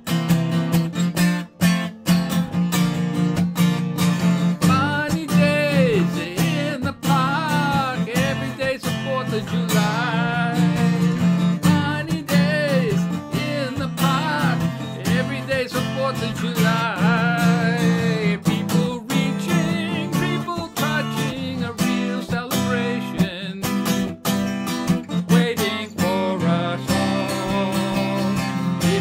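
Steel-string acoustic guitar strummed in a steady rhythm, playing chords through an instrumental passage of a song.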